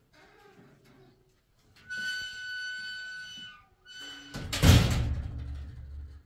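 Metal door hinge squealing in a long steady high note as the door swings, squealing again briefly, then the metal door banging shut with a low rumble after it.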